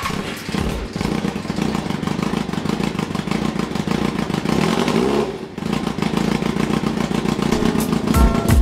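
Yamaha FZR1000's inline-four engine running, with a brief rise and fall in revs about five seconds in. Music comes back near the end.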